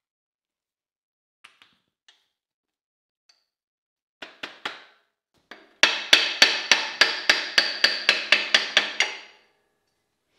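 Air impact wrench loosening the pinion nut on a 10-bolt rear axle: a few short bursts, then a run of rapid hammering blows for about three seconds with a ringing tone under them.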